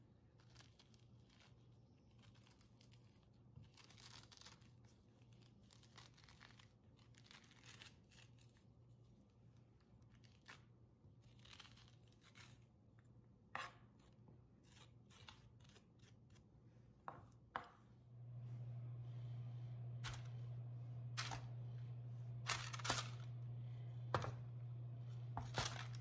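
A metal spoon scraping seeds and stringy pulp out of a halved raw spaghetti squash: soft irregular scrapes and tearing sounds. About two-thirds of the way through a steady low hum comes in, with a few sharp knocks over it.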